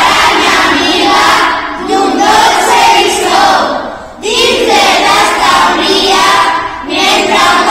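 A group of children's voices singing together in unison, in phrases of about two seconds with short breaks between them.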